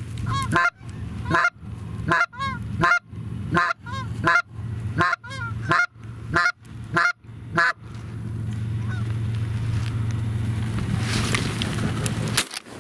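Hand-blown Canada goose call working an incoming goose: a rapid run of sharp honks and clucks, about one every 0.7 seconds, that stops about eight seconds in. A steady low rumble of wind follows.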